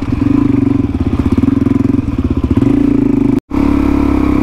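Single-cylinder dirt bike engine running under load as it climbs a rocky track, its note pulsing unevenly. The audio drops out sharply for a moment about three and a half seconds in, then the engine carries on more steadily.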